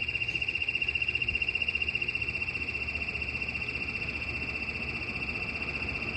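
Royal TS-1000G smoke and gas alarm sounding its alarm, set off for a test: a continuous high-pitched electronic tone with a fast flutter.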